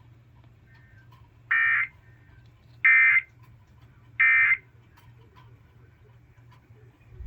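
Emergency Alert System SAME end-of-message signal: three short, identical bursts of buzzing digital data tones, about a second apart, marking the end of the severe thunderstorm warning broadcast.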